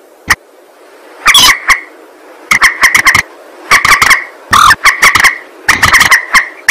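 Recorded lure call of a mandar (rail): loud bursts of rapid, harsh repeated notes, a burst about every second, over a faint hiss.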